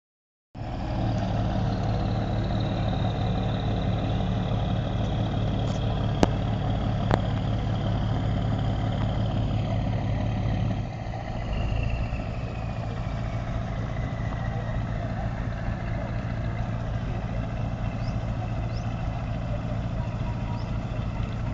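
Boat motor running steadily; it drops to a lower, quieter run about halfway through, as when throttling back. Two sharp clicks sound about six and seven seconds in.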